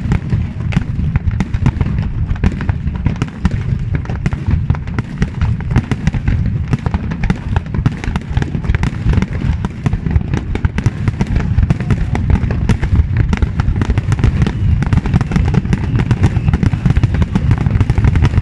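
Aerial fireworks going off in a dense, rapid barrage: many overlapping bangs and crackles over a continuous low rumble of booms, with no pause.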